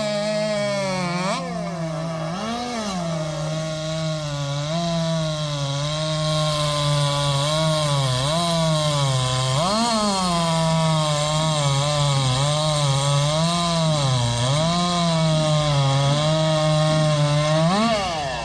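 Two-stroke racing chainsaw running flat out through a log in a timed race cut, its engine pitch dipping and recovering repeatedly as the chain bites into the wood. Near the end the revs fall off.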